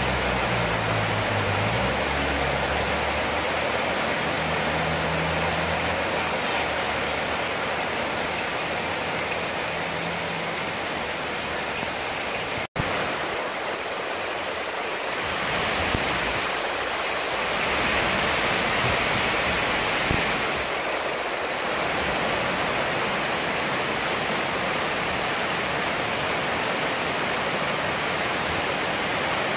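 Steady rain falling, with rainwater running over muddy ground. A low hum sits under it for roughly the first ten seconds, and the sound drops out for an instant about 13 seconds in.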